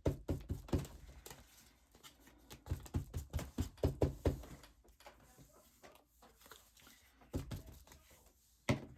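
Paper being handled on a craft table: rustling and sliding with clusters of light taps and knocks as pieces are positioned and pressed down.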